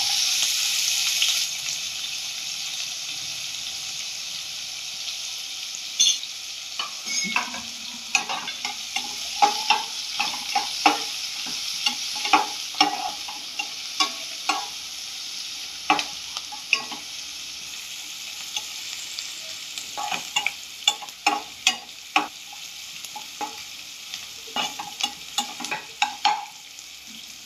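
Chopped onion sizzling in hot oil with mustard seeds, loudest for the first second or so and then a steady lower sizzle. From about six seconds in, a spatula stirring through the pan adds repeated short scrapes and taps. The onion is being sautéed until it turns translucent.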